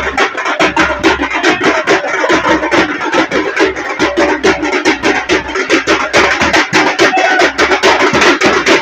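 Music with a fast, steady beat and plucked-string or guitar-like tones.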